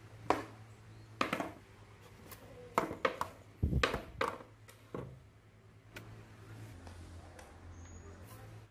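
Skateboard being handled on a tiled floor: a string of sharp knocks of the deck and wheels, with a heavier thump about three and a half seconds in, over a low steady hum. The knocks stop about five seconds in.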